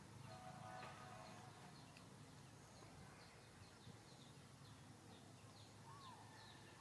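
Faint outdoor ambience: small birds chirping over and over in the background, with a few short arching calls near the end.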